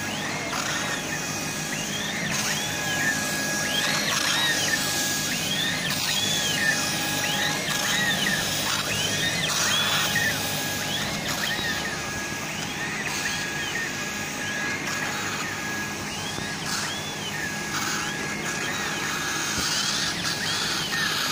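CO2 laser engraving machine raster-engraving: the laser head's drive motors whine, rising and falling in pitch with each back-and-forth pass about once a second, over a steady hiss.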